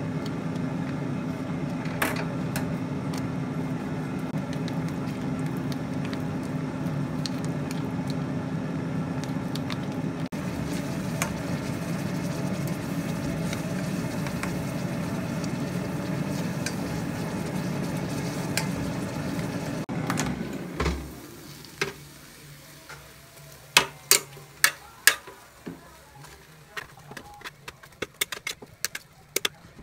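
Food simmering in an enamel saucepan while it is stirred with a wooden spoon, over a steady hum. About twenty seconds in this stops, and metal tongs click and tap against an air-fryer basket as the food inside is turned.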